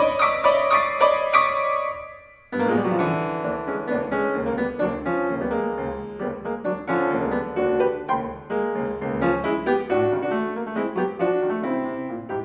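C. Bechstein grand piano played solo in a quick, busy classical passage with many notes struck close together. About two seconds in, the sound dies away briefly, then the playing comes back in at full level and carries on in dense runs and chords.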